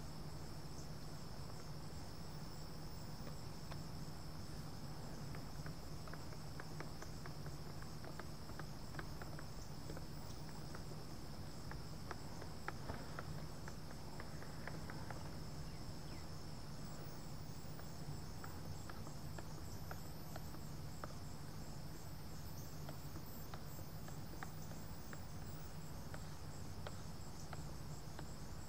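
Insects chirring steadily on one high note over a low steady hum, with faint scattered scrapes and taps of a wooden stir stick working paint in a metal paint can, most of them in the middle of the stretch.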